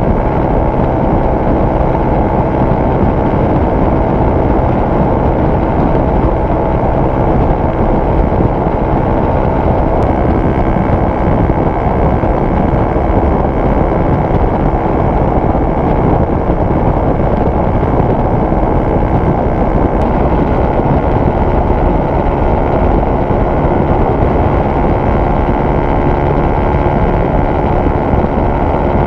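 Honda RS150R's single-cylinder four-stroke engine running hard and steady at about 8,000 to 8,700 rpm at highway speed, mixed with wind rush on the microphone.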